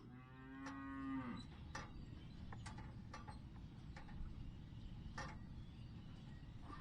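A cow moos once, a single call of a little over a second that drops in pitch as it ends, followed by scattered light clicks over a steady low rumble.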